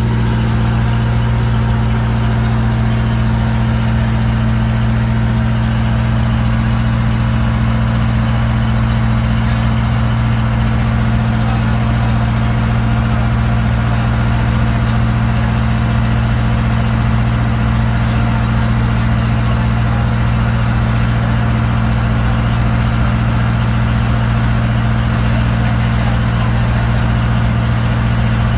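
Kelotok river boat's inboard engine running steadily under way, a constant low drone that holds the same pitch and level throughout.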